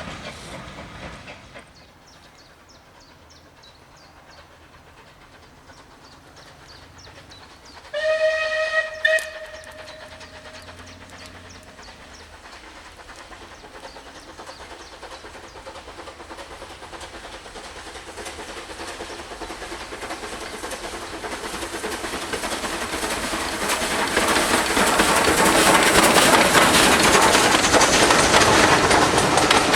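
A steam locomotive's whistle sounds a short two-part blast about eight seconds in. Then a train approaches, the rumble and clatter of its wheels on the rails growing steadily louder until it is close.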